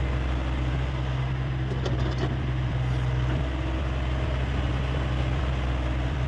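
Hyundai 85A excavator's diesel engine running at a steady speed, with faint clicks about two seconds in.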